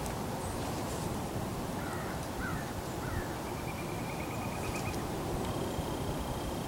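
Steady low outdoor background rumble in bare winter woods, with faint distant bird calls: a few short chirps about two seconds in and a quick trill a little later. A thin, steady high tone comes in near the end.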